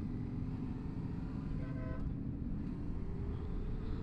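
Motorcycle engine running with a steady low rumble. A vehicle horn gives one short toot about one and a half seconds in, and near the end a faint tone slowly rises in pitch.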